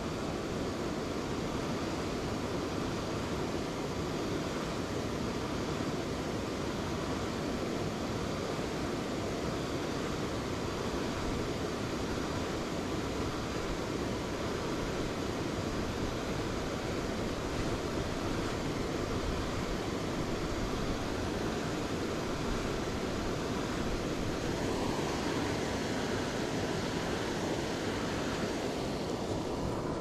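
Steady, even rushing of water from the waterfall, with no breaks.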